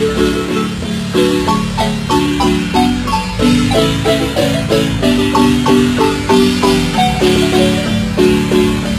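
Marimba band playing a lively dance tune: mallets strike the wooden bars in quick runs of ringing notes over a steady repeating bass line.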